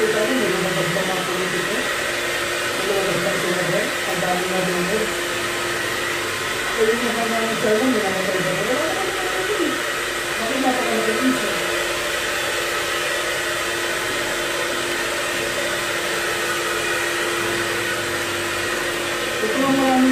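Handheld hair dryer running steadily while blow-drying hair: a constant rush of air with a steady motor hum.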